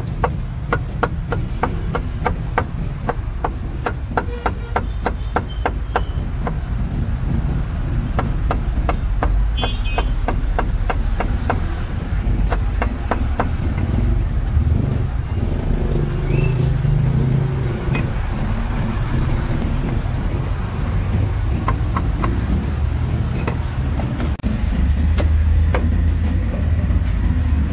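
A cleaver chopping roast meat on a cutting board: quick, regular strikes, several a second, thinning out about halfway through, over a steady low traffic rumble.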